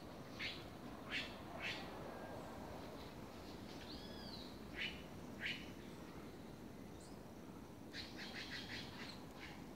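Forest birds calling: a few short, sharp high calls, a single arched whistle near the middle, and a quick run of about six notes near the end, over a steady low background hiss.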